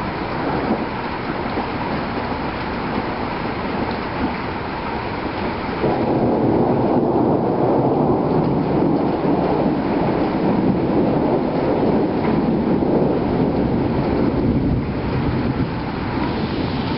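Rain falling steadily during a thunderstorm, with a long rumble of thunder that comes in suddenly about six seconds in, rolls on for around nine seconds and then eases off.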